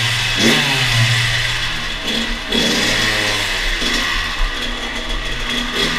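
Kawasaki KX100 two-stroke dirt bike engine being ridden slowly, its revs rising and falling again and again, echoing off the concrete walls of the tunnel.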